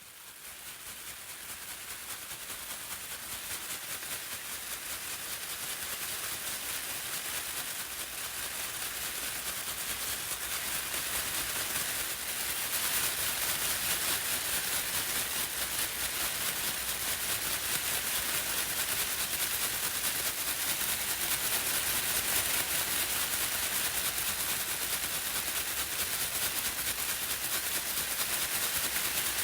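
Pom poms shaken without pause, a dense, rapid, hissy rustle of many strands. It fades in over the first few seconds and grows a little louder about halfway through.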